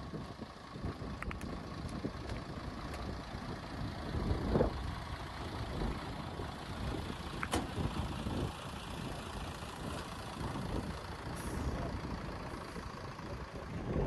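Fire truck engine running close by, a low steady rumble, with a few faint clicks over it.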